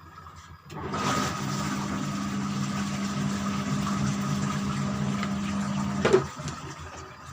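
LG washing machine, rebuilt from digital to manual control, running with a steady electric hum and a rushing noise. The sound starts about a second in and cuts off about six seconds in with a sharp knock.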